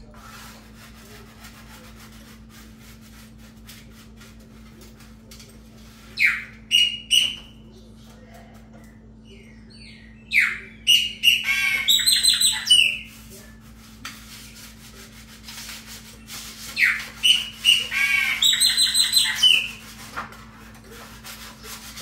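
Chopi blackbird (pássaro-preto) singing in three loud phrases of gliding whistled notes and quick chattering syllables, about six, ten and seventeen seconds in. A steady low hum runs underneath.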